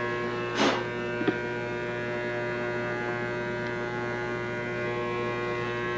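Electric hair clippers running with a steady buzz. A short breathy noise about half a second in and a small click a moment later.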